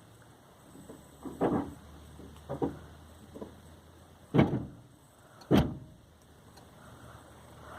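Four separate knocks or thumps on a car, the last two loudest and about a second apart.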